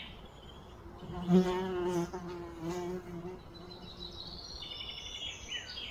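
A flying insect buzzing close by, its drone wavering slightly in pitch and loudest about a second and a half in before fading. Short, high, pulsed chirping comes in near the end.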